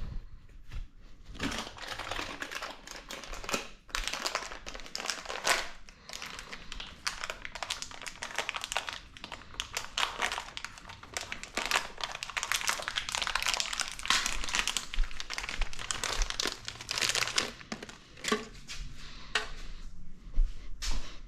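Packaging crinkling and rustling almost without a break as it is handled, starting about a second in and easing off near the end.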